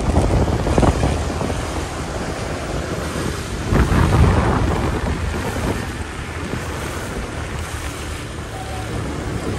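Wind rushing over the microphone of a moving motorbike, with engine and road-traffic noise underneath; it swells louder for a moment about four seconds in.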